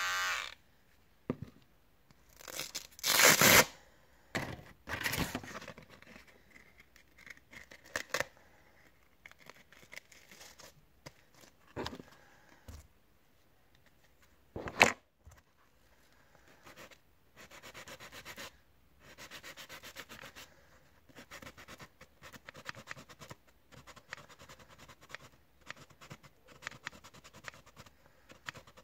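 Hands working with sandpaper, a sanding block and a plastic hair trimmer: rustling, scraping and rubbing noises, a sharp knock about fifteen seconds in, and a run of short rubbing strokes in the second half.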